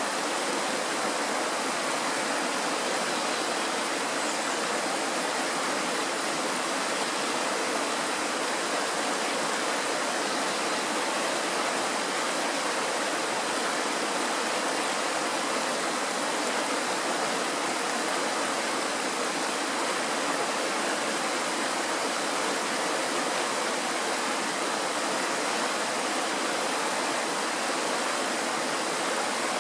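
Mountain stream rushing over rocks in a small white-water rapid: a steady, unbroken rush of water.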